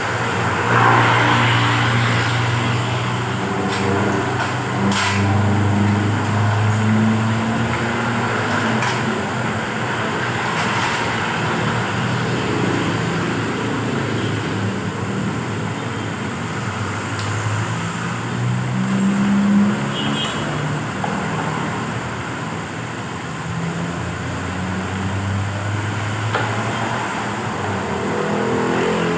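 Motor vehicle engines passing by, their hum swelling and fading several times, with a few sharp clicks mixed in.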